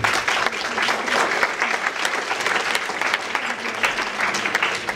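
Audience applauding: dense, many-handed clapping that starts abruptly.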